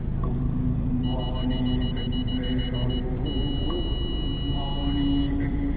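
Steady low rumble of a car driving slowly through busy city traffic, with music playing over it and two long high-pitched tones in the middle.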